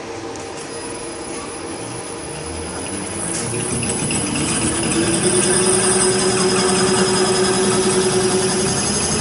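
Diesel common-rail pump test bench driving a Delphi 33100-4A700 high-pressure fuel pump during a delivery test. It runs steadily, then picks up speed about three to five seconds in, with a whine that rises and holds.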